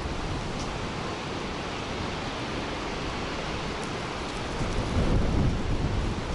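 Strong storm wind rushing and buffeting the microphone with a low rumble, swelling with a harder gust about three-quarters of the way through.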